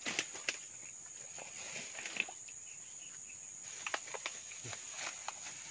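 Insects chirring in one steady, high-pitched drone, with a few faint scattered clicks and rustles.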